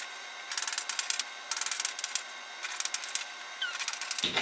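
Chalk scratching and tapping on a blackboard in about four short bursts of quick strokes, with a brief squeak near the end.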